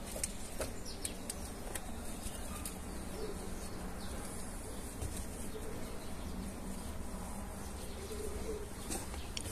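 A hand hoe chopping and scraping in loose soil, in scattered light knocks, with birds calling in the background, one soft call coming a few times.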